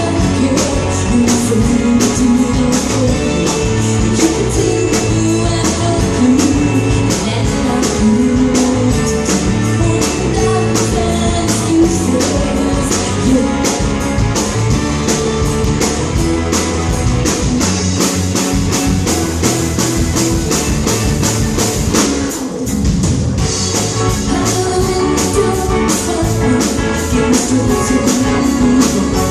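Rock-style song with guitar, drums and a tambourine keeping a steady beat, and singing; it thins out briefly about two-thirds of the way through.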